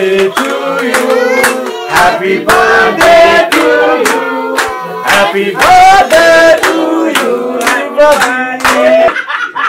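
A group of people singing a birthday song together while clapping along to a steady beat.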